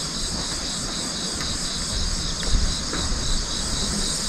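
A steady chorus of insects, a shrill high buzzing with a faint regular pulse, over a low rumble with a thump about two and a half seconds in.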